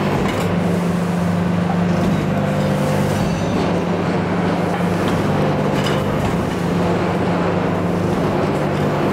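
Sectional screw flight forming machine running with a steady low hum from its hydraulic drive, with a few light clicks as a steel ring blank is pressed between the dies.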